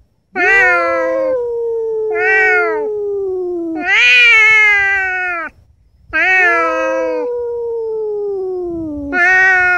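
Cats caterwauling at each other, the drawn-out yowling of a fight standoff. Long, wavering howls overlap one another, with a brief break about five and a half seconds in.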